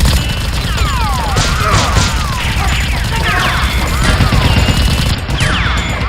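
Gunfire sound effects: a rapid series of shots with repeated falling ricochet whines, dubbed over a Nerf blaster fight.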